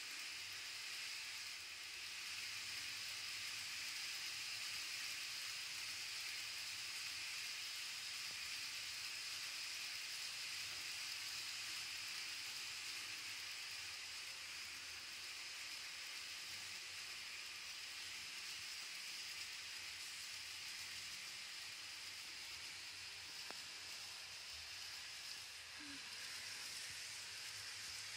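Model railway container freight train running along the track: a faint, steady hiss of the wagons' small metal wheels rolling on the rails.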